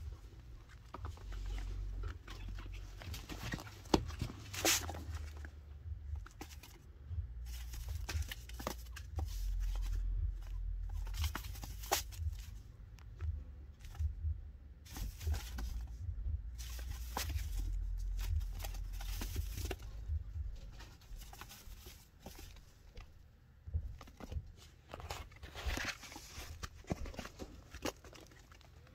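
A chinchilla scuffling and rustling about, with irregular light taps and scratchy sounds as it moves in and around a metal pan of bath dust, over low thumps and rumble.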